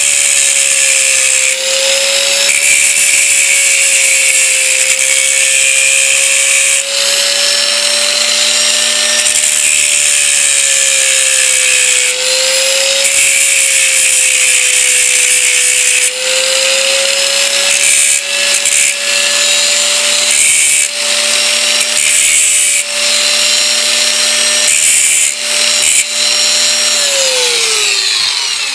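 Small variable-speed angle grinder running at reduced speed, its disc grinding down the worn steel teeth of a Druzhba-4 chainsaw starter ratchet, the motor pitch wavering slightly under load. Near the end the grinder is switched off and winds down.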